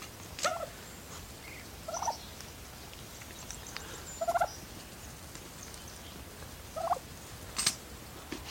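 Bronze turkey calling: four short rising calls, roughly two seconds apart, with a sharp click near the end.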